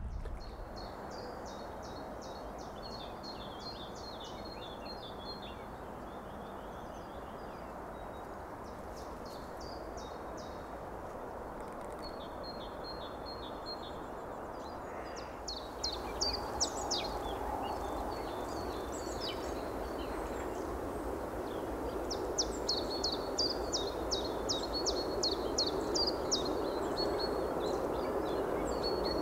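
Small songbirds singing in quick series of high chirps and trills, over a steady outdoor hiss that grows louder about halfway through.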